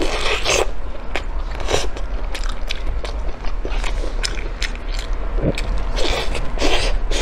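Close-up eating sounds of a large piece of roasted pork on the bone: irregular bites and wet chewing with crackly, crunchy clicks, the loudest bites at the start and again near the end. A steady low electrical hum runs underneath.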